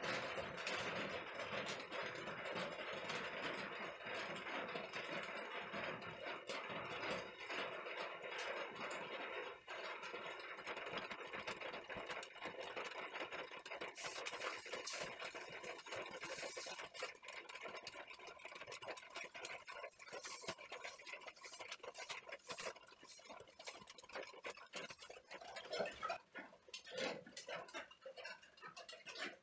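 Hot leaf-spring steel machete blade sizzling and crackling as its edge is held in the water of a quench tank. The hiss slowly dies away as the steel cools.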